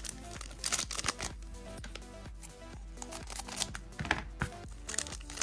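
Foil trading-card booster pack crinkling as it is handled and opened, in a few short crackly bursts, over quiet background music.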